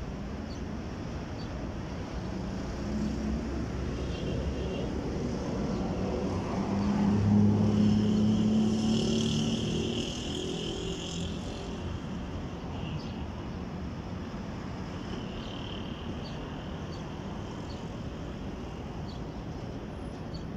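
A motor vehicle driving past: its engine hum builds over several seconds, is loudest near the middle, then fades away. Short faint high chirps come and go throughout.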